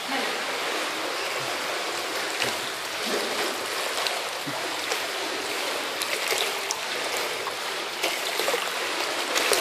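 Steady water noise in a small tiled pool, with light splashing and lapping as a toddler is moved through the water.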